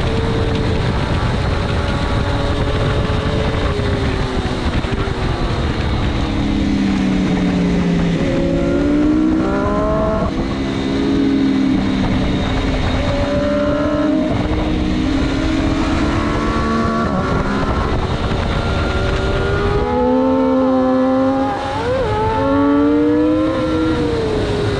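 600cc superstock sportbike engine at racing speed, heard from on board over heavy wind rush. Its pitch climbs and drops sharply again and again as it shifts through the gears, with quick blips on the way down into corners.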